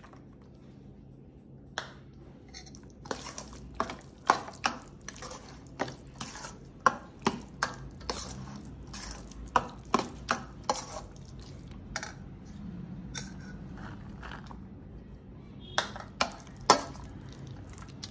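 Metal spoon knocking and scraping against a steel mixing bowl while stirring a thick yogurt mixture. The sharp, irregular clinks start about two seconds in and come once or twice a second.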